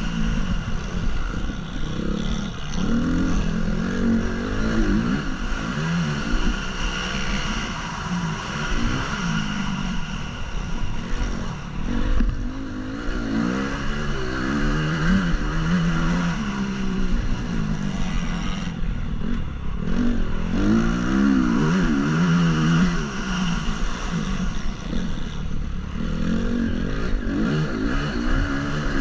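Honda CRF 250's single-cylinder four-stroke motocross engine revving up and dropping back again and again, its pitch rising and falling every second or two, heard on board from a helmet camera.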